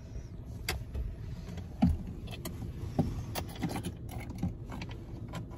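Low, steady rumble of a car running, with scattered sharp clicks and knocks.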